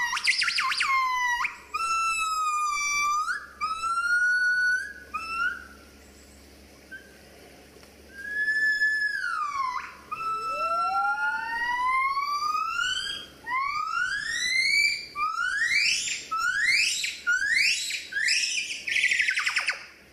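Gibbons singing: loud, pure whistle-like notes that slide up and down. After a pause about six seconds in, a run of steeply rising notes comes quicker and quicker toward the end.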